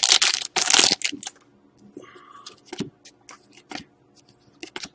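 A hockey card pack's wrapper crinkling loudly as it is torn open for about the first second, followed by soft flicks and clicks of cards being slid through by hand.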